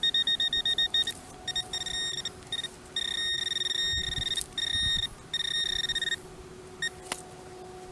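Metal detector beeping over a buried iron target, an old screw. First comes a rapid pulsing tone of about eight beeps a second, then longer broken tones that stop about six seconds in.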